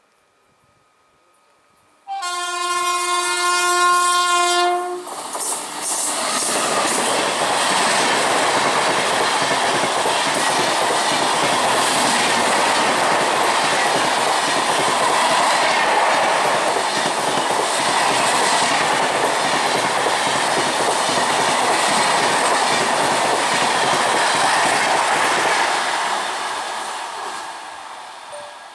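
An Indian Railways express train passing at speed close by. The locomotive sounds one horn blast of about three seconds, then the loud rush and wheel clatter of the coaches runs for some twenty seconds and fades near the end.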